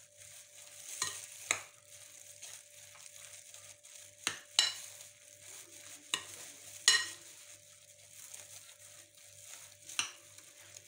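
Gloved hand kneading raw minced meat with egg in a glass bowl: soft wet squelching and crinkling of the plastic glove, broken by several sharp clicks at uneven intervals.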